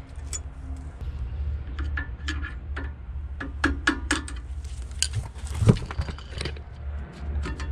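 Screwdriver and hammer tapping and prying the metal brake-pad hardware clips off a Ford F150's rear caliper bracket: an uneven run of metallic clinks and taps, the loudest about two thirds of the way through.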